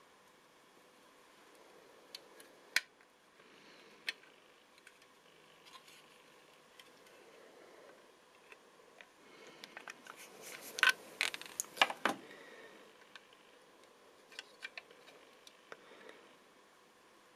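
Parts of a 1:24 scale model car being handled and fitted together by hand: scattered light clicks and taps, with a brief flurry of louder clicks about ten to twelve seconds in.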